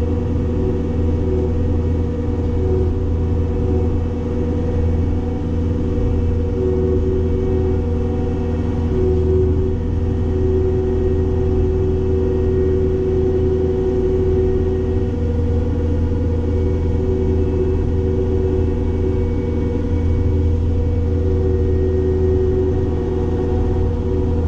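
Cat 262D skid steer's diesel engine running steadily while driving a hydraulic open-front brush cutter: a constant, even hum with no breaks.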